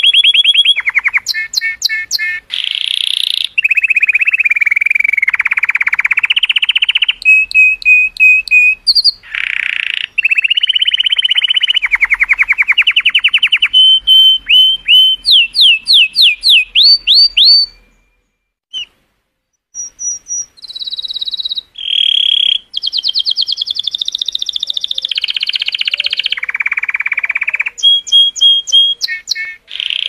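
Male color canary singing a long, varied song of rapid trills and rolls. Just past halfway it gives a run of rising whistled notes, breaks off for about two seconds, then resumes with more trills.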